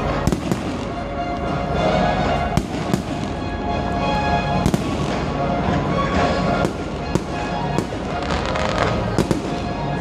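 Fireworks going off in a display, about ten sharp bangs at irregular intervals, over music playing throughout.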